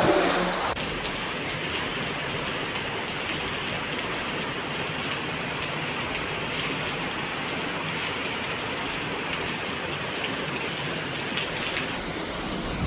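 Steady rushing hiss of heavy rain and floodwater running through a street during a severe storm.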